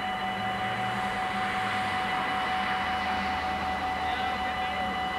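Dutch automatic level-crossing warning bells ringing steadily while the crossing is closed, with a rushing noise of passing traffic swelling and fading across the middle.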